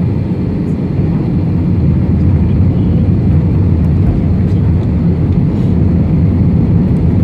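Airbus A320-200 airliner's steady low rumble, growing a little louder about a second in.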